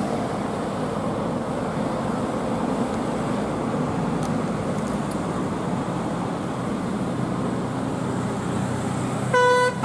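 Steady road traffic noise from passing vehicles. Near the end a bus telolet horn starts up with a loud, clear musical tone.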